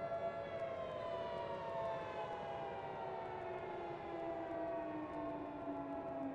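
Civil defense siren wailing, with two pitches sounding at once: one holds steady while the other slides slowly down.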